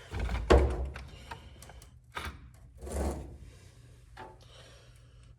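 A few dull knocks and light clicks, the loudest about half a second in and more near two and three seconds in, then only a low hum.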